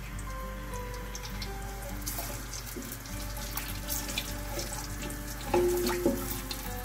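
Cumin seeds sizzling and crackling in hot oil in an aluminium pressure cooker as they roast, stirred with a wooden spatula.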